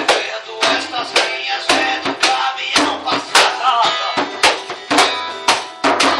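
Music: guitar playing over a steady percussive beat of about two strikes a second.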